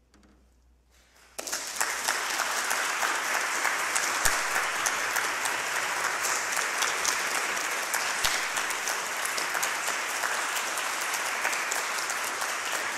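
Audience applauding, breaking out suddenly about a second and a half in after a brief hush, then a steady, dense clapping.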